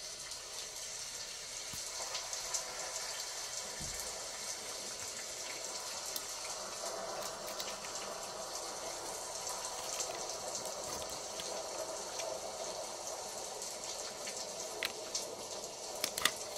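Steady rain, an even hiss of falling water, with a few light clicks near the end.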